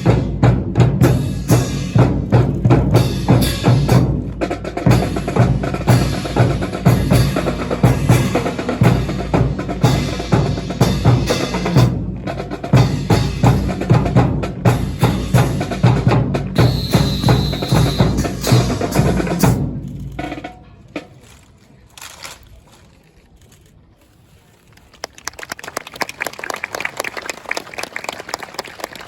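Marching drum corps of snare and bass drums playing a steady drill cadence with sharp, evenly spaced strokes. The drumming stops about two-thirds of the way through, leaving a much quieter stretch, and a faint rapid patter starts near the end.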